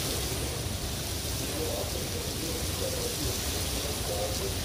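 Intense rain squall: heavy rain falling steadily, a constant even hiss with a low rumble beneath it.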